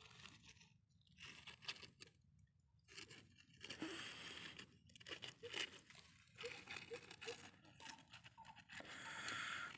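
Small die-cast toy car pushed by hand over dry, gritty dirt, its wheels and body crunching and scraping on the soil in several short spells with pauses between.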